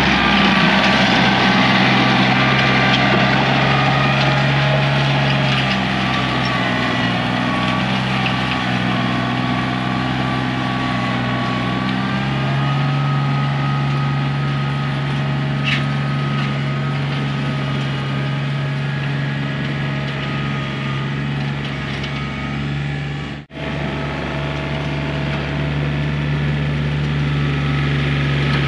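Compact diesel tractor engine running steadily as it pulls a box blade to grade gravel; its note shifts a little a few seconds in and again about halfway.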